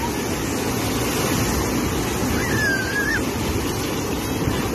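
Ocean surf breaking and washing in over the shallows, a steady rushing noise.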